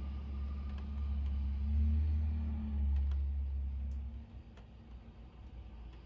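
Low vehicle rumble that swells twice and drops away a little after four seconds in, with a few faint ticks.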